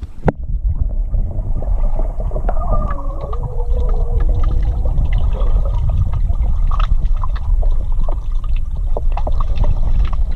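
Swimming-pool water heard through a camera held under the surface: a heavy muffled rumble with crackling clicks and bubbling. A wavering, whistle-like tone drifts up and down for a couple of seconds early in the stretch.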